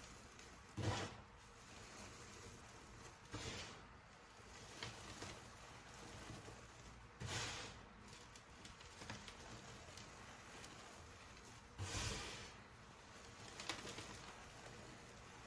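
Yellow pressed-powder reforms being crushed by hand: short crunches and crumbles, about six of them a few seconds apart, over a faint steady hiss.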